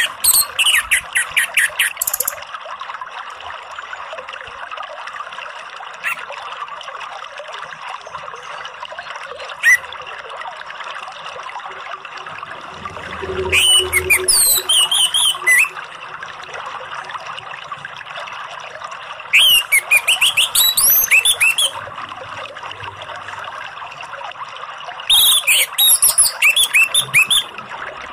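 Orange-headed thrush singing, four bursts of song a few seconds apart, each about two seconds of rapid, varied, high whistled notes.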